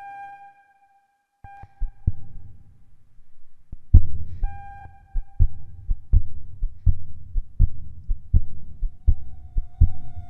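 A held, pitched beep-like tone with a few overtones that breaks off and comes back twice. It is followed by a steady low thumping, about one thump every three-quarters of a second, like a heartbeat, which turns loud about four seconds in. A held tone joins in again near the end.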